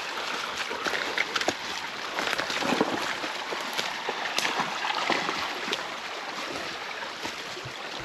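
Footsteps of a person and dogs walking on a woodland trail: irregular crunches and clicks over a steady rushing hiss.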